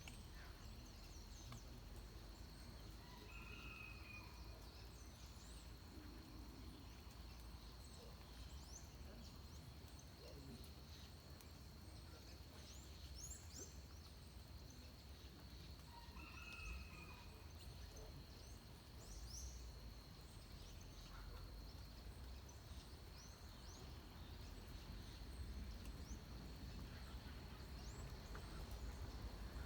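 Faint dawn forest ambience: scattered short high bird chirps, with one lower bird call heard twice, some thirteen seconds apart. Over it runs a steady thin high whine and a low rumble that swells a little near the end.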